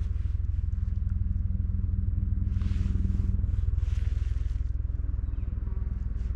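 Helicopter approaching: a low, steady rotor beat and engine hum that grows slightly louder, with two brief rushes of noise in the middle.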